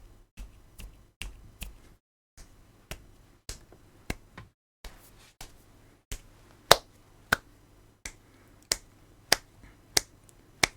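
A run of sharp clicks, uneven at first, then steady at about one every two-thirds of a second and louder from about halfway.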